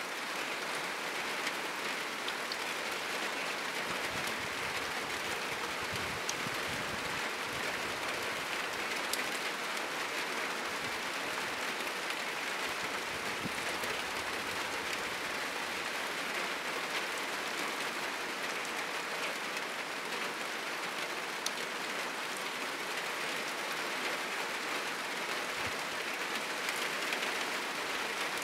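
Heavy rain falling steadily on a roof, an even rushing hiss with scattered sharper drop ticks.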